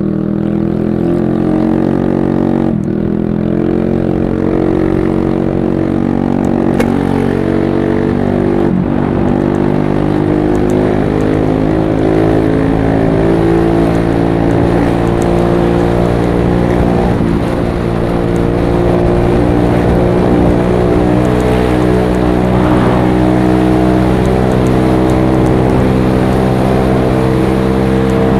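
TVS Ntorq 125 scooter's single-cylinder engine running through a freshly fitted SC Project aftermarket exhaust, a loud, thumping note whose pitch rises and dips a little with the throttle.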